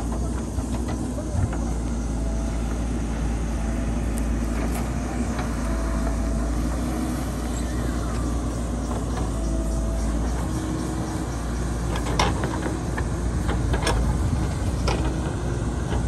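JCB backhoe loader's diesel engine running steadily under hydraulic digging work, with a few sharp knocks near the end.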